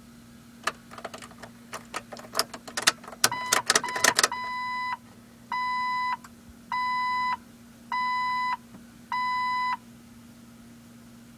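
Keys jangling and clicking for a few seconds, then the Jeep TJ Wrangler's warning chime beeping five times, evenly, about once every second.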